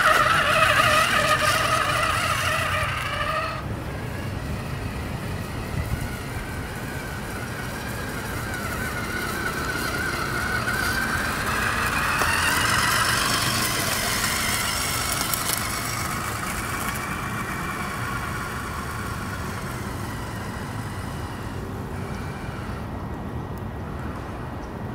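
Battery-powered 1:5 scale RC rock crawler truck driving, its electric motor and gears whining. The whine is steady for the first few seconds, then drops away. A few seconds later it rises in pitch as the truck speeds up, peaks around the middle, and falls away again, over a low rumble.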